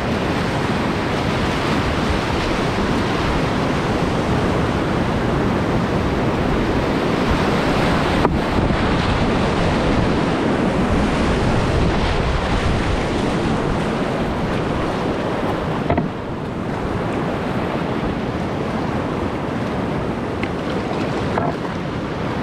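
Rushing whitewater of class 3/4 river rapids, heard from a kayak running through them. There is a brief knock about eight seconds in, and the rush eases a little after about sixteen seconds as the water calms.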